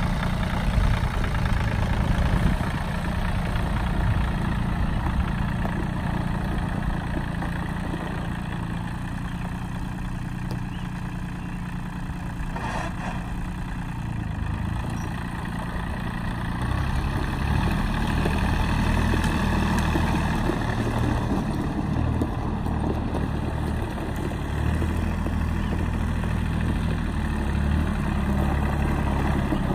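New Holland TC29 compact tractor's three-cylinder diesel engine running steadily as the tractor drives around, getting louder in the second half.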